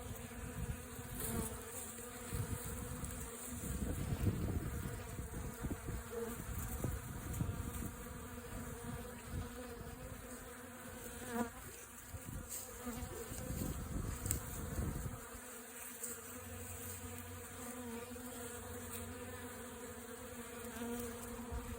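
Many honeybees buzzing together at an open feeder: a steady, many-layered hum. A low rumble underlies it for most of the first fifteen seconds, then drops away.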